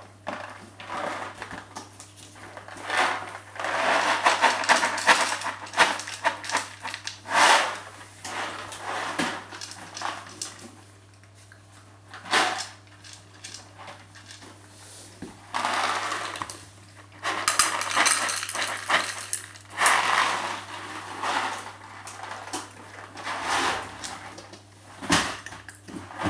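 Cat eating from a plastic food bowl: irregular bouts of crunching and rattling against the bowl, loudest a few seconds in and again about two-thirds of the way through.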